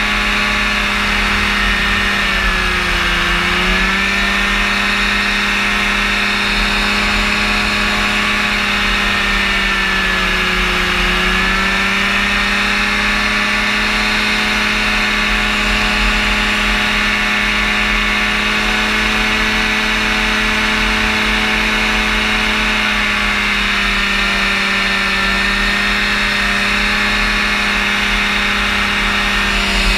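Rotax engine and propeller of a powered parachute running steadily in flight. The pitch dips briefly and comes back up about three seconds in and again about eleven seconds in, with wind buffeting the microphone.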